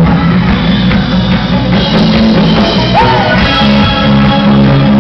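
A rock band playing live, with drum kit, bass and singing, loud and dense. A short swooping note rises and falls about three seconds in.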